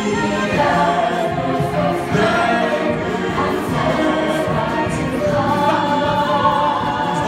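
Musical-theatre cast singing an ensemble number together, several voices in harmony over musical accompaniment, with long held notes.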